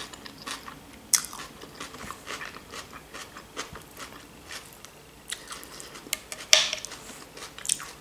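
Chewing and crunching of fresh vegetable salad (lettuce, cucumber, tomato, onion) as a run of short crisp crunches, the loudest about six and a half seconds in.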